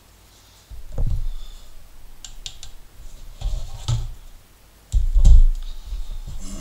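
Tabletop handling noises as a leather knife sheath, a plastic kitchen scale and a knife are picked up and set down on a cutting mat: several dull thumps with a few light clicks, the loudest thump about five seconds in.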